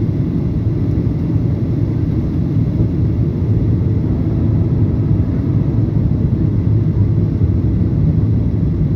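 Steady low cabin rumble of a Boeing 737-800 descending on approach, its CFM56 engines and the airflow heard from inside the passenger cabin.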